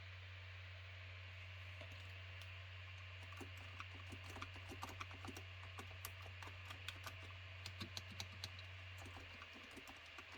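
Light typing on a Razer Huntsman Mini keyboard with linear red optical switches: quiet, quick, irregular keystrokes that start about three seconds in and stop shortly before the end, over a steady low hum.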